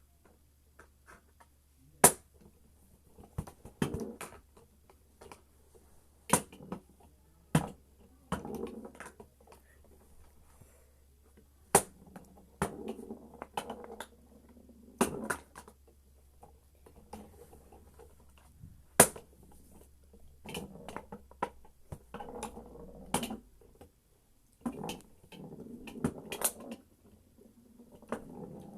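Mini foosball table in play: irregular sharp clacks as the ball is struck by the plastic players and knocks against the table, with softer rattling of the rods and players in between.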